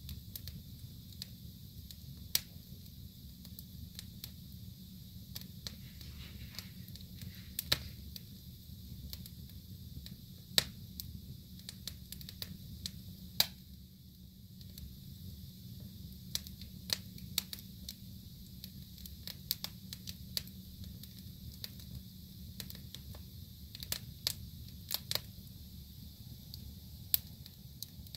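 Wood fire burning in a fireplace, crackling with irregular sharp pops, a few much louder than the rest, over a low steady rumble.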